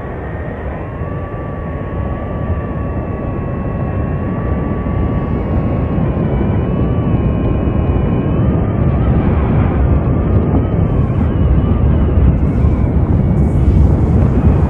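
A deep, steady roar that grows steadily louder, with a thin wavering whine over it like a drone's motors, and crackling bursts near the end as the roar peaks.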